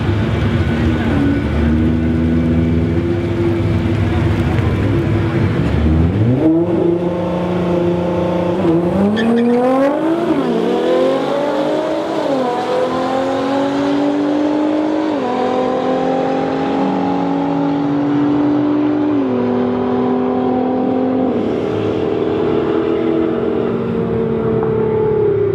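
Nissan GT-R twin-turbo V6 and Ford Mustang GT 5.0 V8 drag racing: both hold steady revs at the staging line, then launch about six seconds in and accelerate hard, the engine pitch climbing and dropping back at each upshift as the cars pull away down the track.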